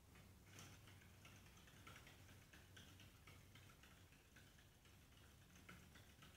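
Hamster's running wheel clicking faintly as it turns with the hamster running inside, about three light ticks a second, starting about half a second in.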